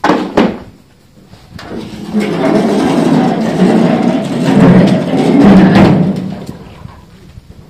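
Galvanized metal tub knocked twice, then dragged and scraped across cobblestone paving for about five seconds, rumbling and rattling and swelling twice before it stops.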